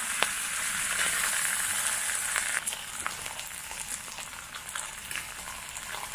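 Food frying in a hot pan: a steady sizzling hiss with scattered pops and crackles.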